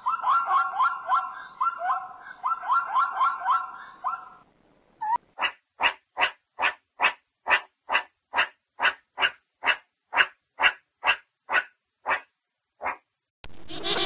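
A zebra calling with quick runs of high, barking yelps that stop about four seconds in. After a second's pause, a meerkat gives a long series of short, sharp chirping barks, about two and a half a second. Just before the end, the dense calling of a king penguin colony begins.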